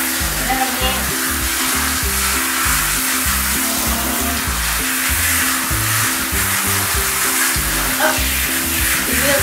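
Handheld shower head spraying water onto a toy poodle's wet coat and the shower tray, a steady hiss, over background music with a bass line.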